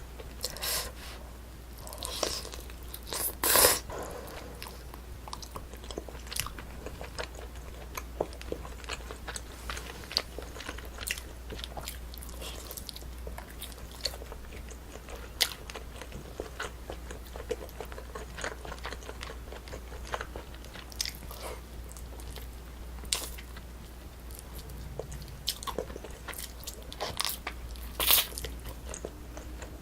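Close-miked chewing and biting of braised spicy chicken: many small wet mouth clicks and smacks, with a few louder sharp clicks about three and a half seconds in and near the end, over a steady low hum.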